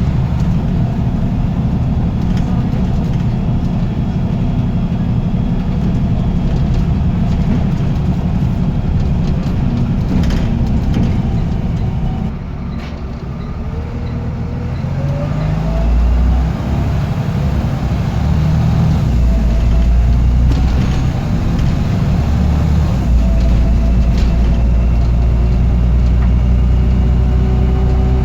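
Diesel bus engine running under way, easing off about twelve seconds in and then pulling away again with a rising whine. A thin high turbo whistle rides over the engine in the later part.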